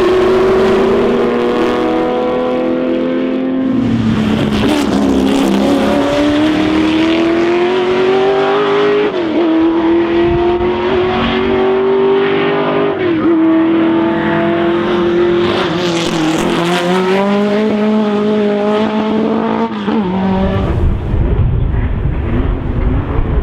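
Racing car engine pulling hard through the gears: the pitch climbs in long pulls and drops sharply at each upshift, about four times. Near the end it gives way to a deeper, rougher rumble.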